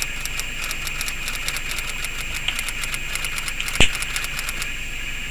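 Faint rapid clicking from a small wire being handled and bent, over a steady hiss, then one sharp click near four seconds in as a long-nosed utility lighter is sparked to heat the nitinol wire.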